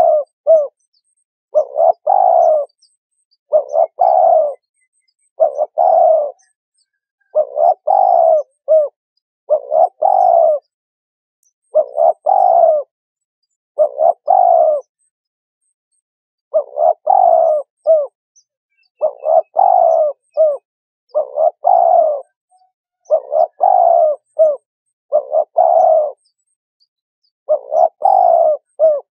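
Spotted dove cooing: a short phrase of several coos repeated about every two seconds, with a slightly longer pause near the middle and again near the end.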